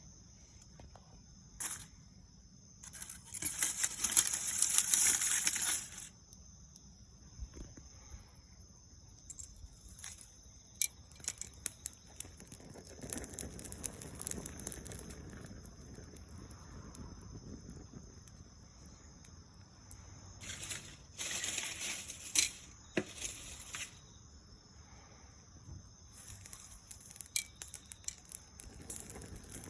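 Dry soyogo (longstalk holly) leaves rustling and crackling, with two longer bursts of crinkling noise and scattered sharp snaps.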